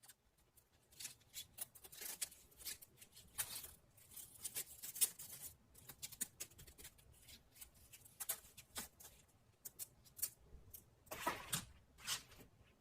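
Close-up crackling, scratching and rustling as small things are handled, in irregular clusters of sharp clicks, busiest early on and again in a short burst near the end.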